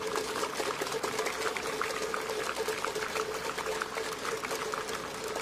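Spectators clapping: a dense, irregular patter of applause, with a steady hum underneath.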